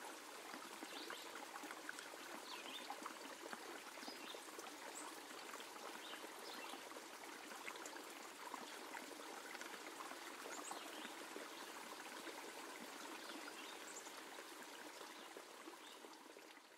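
Faint nature ambience of steadily running, trickling water, with brief high bird chirps scattered through it; it fades out near the end.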